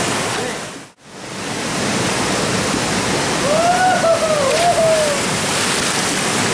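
Steady rush of whitewater in a fast-flowing river, fading almost to silence about a second in and quickly coming back. Near the middle a short voice-like call rises and falls over the water noise.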